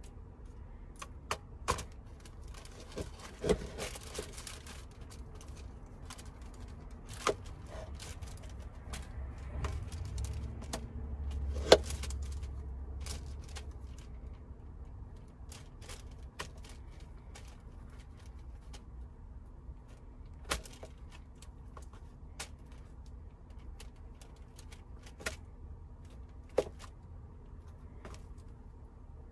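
Irregular knocks and clicks of fruit being cut and handled: a knife tapping on a cutting board and things being picked up and set down, the loudest a sharp knock about twelve seconds in. A low rumble swells and fades around the middle.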